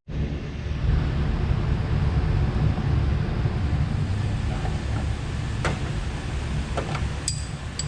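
Steady low wind rumble on the microphone, with a few sharp clicks near the end.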